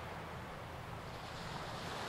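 Small waves breaking and washing in over a flat sandy beach, a steady hiss of surf that grows a little louder near the end, with wind rumbling on the microphone.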